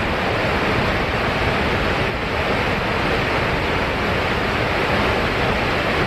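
Dynjandi waterfall pouring down close by: a loud, steady rushing of falling water.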